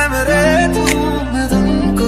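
Intro music: a melody that bends in pitch over held chord notes and a steady low bass.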